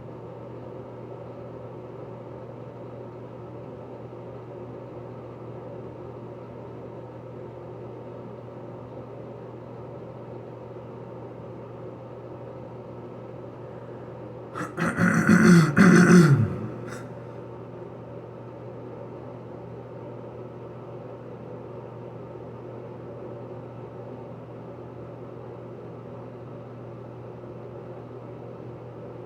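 A steady mechanical hum of room equipment. About halfway through, a person's voice breaks out in a short cry of about two seconds that falls in pitch, the loudest sound in the stretch.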